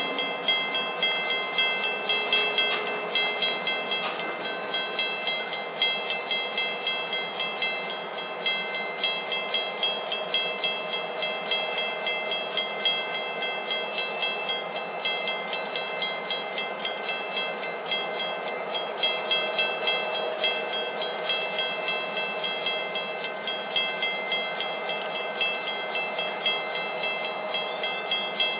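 Railroad grade-crossing bell ringing steadily in a rapid, even rhythm while a stack train stands on the track.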